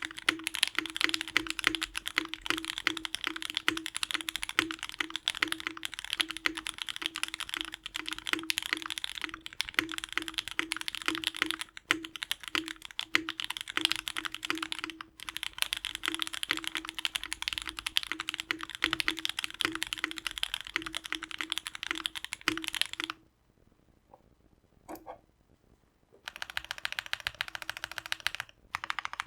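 Fast typing on a Mode Eighty custom mechanical keyboard with lubed and filmed JWK Haluhalo linear switches, an FR4 plate and GMK ABS keycaps: a dense run of key clicks. About 23 seconds in the typing stops for a few seconds, with one lone click, then resumes.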